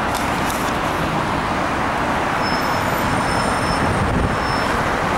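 Steady road traffic noise rising from a busy multi-lane city avenue below, an even, unbroken hum of many cars and buses, with a faint high whine briefly in the middle.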